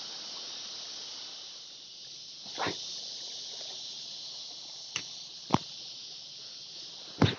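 Steady high-pitched hiss, broken by a handful of sharp clicks and knocks from a spinning reel and rod being handled through a cast, the loudest pair near the end.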